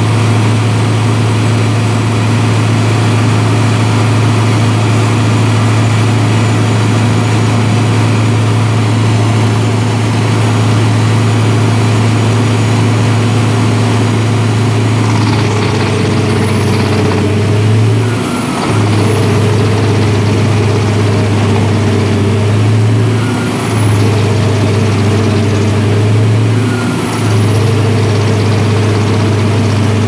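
Scania DC16 diesel engine running a drum wood chipper at full speed while the drum chips whole logs. From about halfway on, the engine note sags briefly three times, each time with a dip in a high whine, as the logs load the drum.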